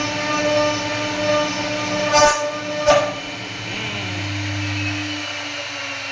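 CNC wood router running with a steady whine. Two sharp knocks come about two and three seconds in, after which the machine runs quieter with a low hum.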